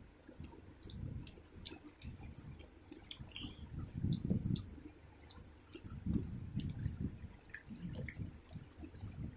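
Small clicks and soft squishy tearing as fingers pull apart a crisp fried egg on a stainless steel plate, with uneven low rumbling handling noise.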